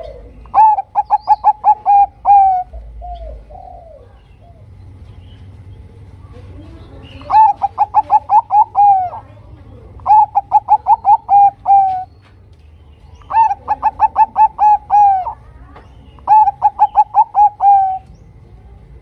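Zebra dove (perkutut, Bangkok song type) cooing: five phrases of rapid staccato coo notes, each lasting about two seconds, repeated every few seconds.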